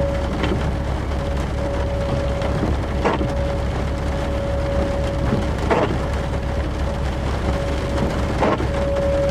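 Steady rain with a low rumble underneath. A short soft stroke comes about every two and a half seconds, and a thin steady mid-pitched tone drops in and out.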